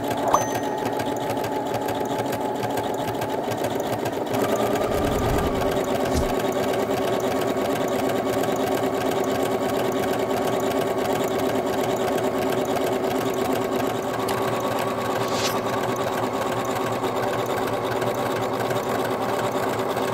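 Singer Heavy Duty 6805 sewing machine stitching an overlock-type zigzag edge on cotton fabric, with a single click just after the start. About four seconds in the machine speeds up, then runs steadily at the higher speed.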